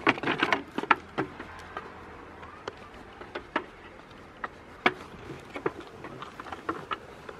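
A goat biting and chewing a fresh cucumber: irregular sharp crunches and clicks, thick in the first second and then scattered.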